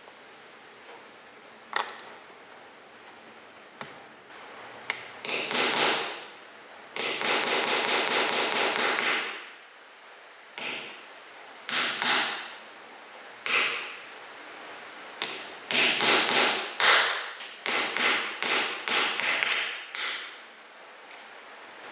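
Rasping strokes across a wood surface, in rough bursts of one to two seconds, coming faster and closer together toward the end, with a few sharp taps in the first few seconds.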